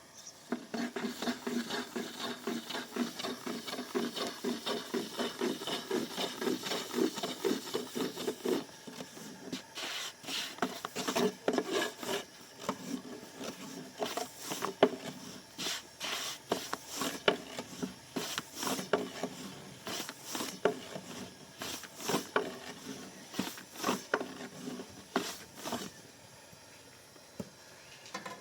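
Bread dough being worked by hand on a wooden board: a rhythmic rubbing of about three strokes a second for the first eight seconds or so, then irregular taps and knocks.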